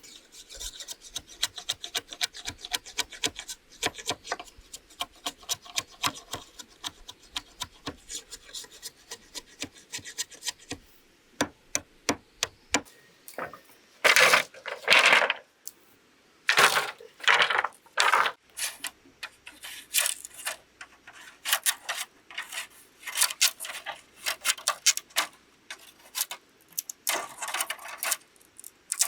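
Hand tools working bamboo or wood: a run of quick light knocks, several a second, then a handful of louder, longer rasping strokes in the middle, then more scattered knocks.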